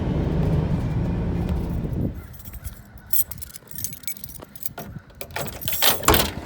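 A vehicle's engine and road rumble heard from inside the cab, stopping abruptly about two seconds in; then keys jangling with a series of small clicks and knocks.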